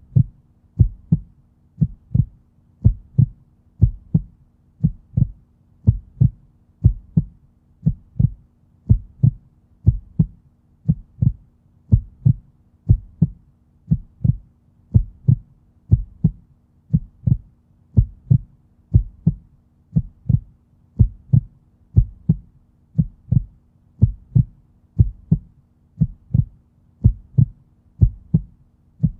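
Heartbeat sound: deep, low thumps repeating at a steady, even pace.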